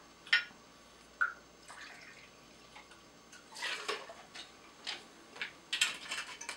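Tequila poured from a bottle into a small glass jigger, then tipped over ice in a blender cup, a short splash about halfway through. Light clinks and knocks of glass on glass and of the bottle being handled and set down.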